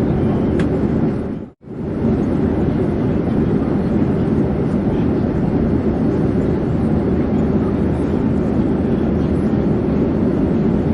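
Steady airplane drone, a dense low rushing noise without pitch changes, that cuts out for an instant about a second and a half in and resumes unchanged.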